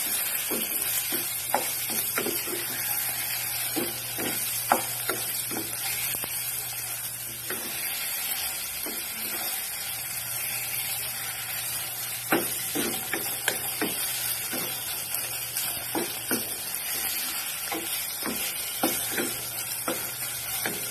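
Chicken pieces sizzling as they are sautéed in a pot, stirred with a wooden spatula. Steady frying hiss, with irregular knocks and scrapes of the spatula against the pot.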